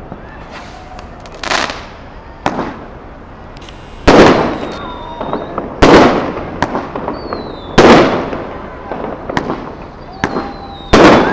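Fireworks shells bursting overhead: a series of sharp bangs, four loud ones about two seconds apart plus smaller pops between them, each trailing off in a crackling echo.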